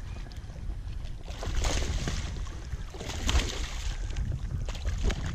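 A hooked fish thrashing and splashing in the shallows at the bank, in several surges, over a steady low rumble of wind on the microphone.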